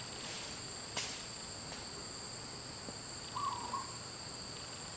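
Steady insect chorus of crickets, two unbroken high-pitched tones. A faint click about a second in, and a short bird call around three and a half seconds in.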